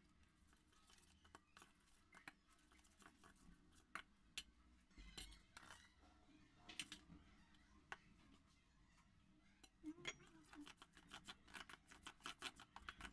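Steel spoon clinking and scraping against a stainless steel bowl while mixing thick gram-flour batter. Faint, scattered light clicks at first, then a quick run of taps from about ten seconds in as the batter is beaten.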